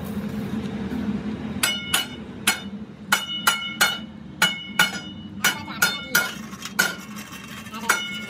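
Hand hammer striking the welded seam of a rolled steel rickshaw rim band, about a dozen sharp, ringing metal strikes at uneven intervals, knocking slag off the fresh weld. A steady low hum runs underneath.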